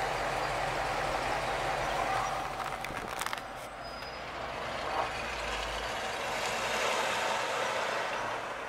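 1951 Mercury station wagon's 255 cubic-inch flathead V8 running as the car drives off, a steady engine and exhaust sound whose low rumble fades out about six seconds in. A short click comes about three seconds in.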